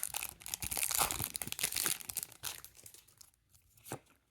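Foil Pokémon TCG booster pack being torn open and crinkled, a dense crackling for about two and a half seconds that thins to a few light crinkles, with one sharper click near the end.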